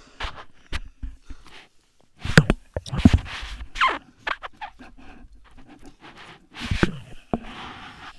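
Close wet licking and mouth noises of a tongue working over a smooth glass lamp base, in irregular bursts, loudest from about two to four seconds in and again near seven seconds.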